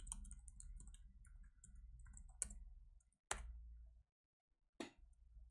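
Faint typing on a computer keyboard: a quick run of light key clicks, then three sharper single clicks spaced about a second apart, over a faint low hum.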